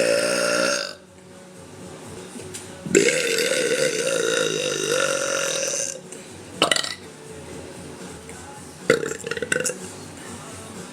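A woman burping several times. One burp trails off about a second in, then comes a long burp of about three seconds with a wavering pitch, and two short burps follow near the end.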